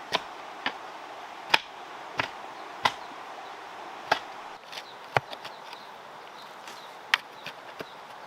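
A series of about nine sharp, short knocks at irregular intervals, roughly one a second, over a steady background hiss.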